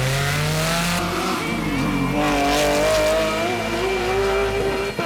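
Rally car engine at high revs under hard driving, its pitch climbing, dropping at a gear change, then climbing and holding again.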